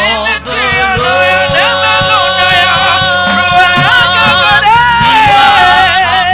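Gospel worship singing: a voice holds long, sliding notes with vibrato over steady instrumental backing, between lines of the chorus.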